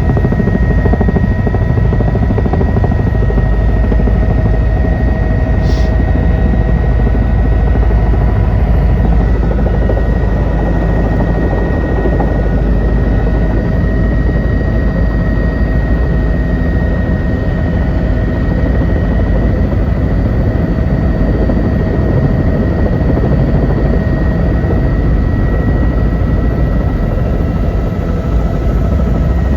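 Helicopter running: a steady loud drone of rotor and engine with a constant high-pitched whine over it.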